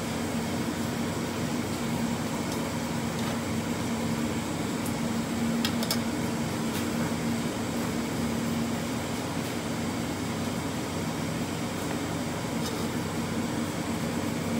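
A steady mechanical hum with a low droning tone, with a few faint light clicks about halfway through.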